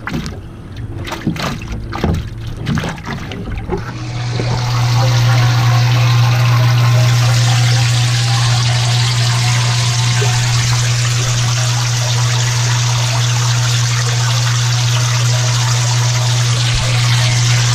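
Knocks and splashes as hands work in a bait bucket of live shiners. Then, from about four seconds in, a steady low hum and an even wash of churning water, heard with the camera down in the bucket's water.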